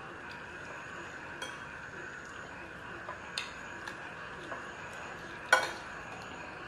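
Metal spoons clinking and scraping against ceramic bowls and plates as food is scooped up: a handful of short light clinks, with one louder clink about five and a half seconds in.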